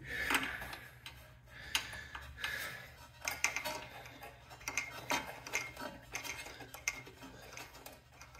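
Light, irregular metallic clicks and taps of a spark plug socket and extension as a new spark plug is threaded by hand into an Ariens snowblower engine, the clicks coming more often from about three seconds in.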